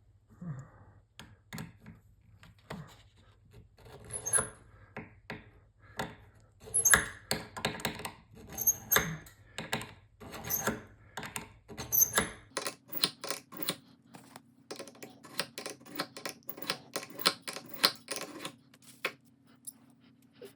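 Scissor blade scraped again and again against the hardened-steel sharpener of an old multi-tool: a string of short metallic scrapes and clicks, some with a high ring. About halfway through the strokes come faster and closer together.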